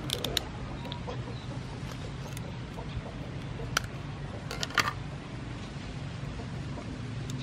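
Kitchen scissors snipping through a raw lobster tail's shell: a few short, sharp clicks just after the start and a cluster of them about two-thirds of the way through, over a steady low hum.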